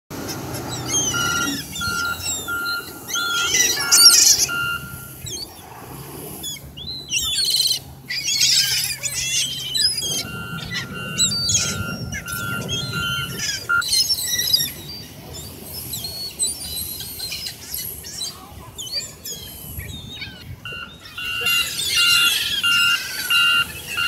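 A flock of gulls calling, many overlapping cries, some close and loud, as they crowd in to be fed. An electronic beeping, about four even beeps a second, comes and goes three times.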